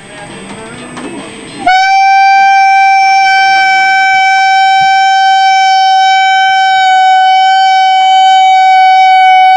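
A horn (a tooter) blown in one long, loud, steady blast at a single pitch, starting sharply about two seconds in and held for the rest of the stretch.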